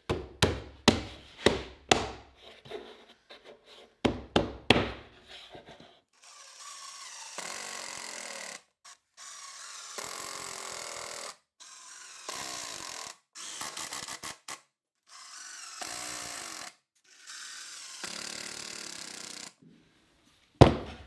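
A cluster of sharp knocks, then a Milwaukee M18 cordless impact driver driving long screws into AZEK PVC board, in about six bursts of one to two seconds each with short pauses between.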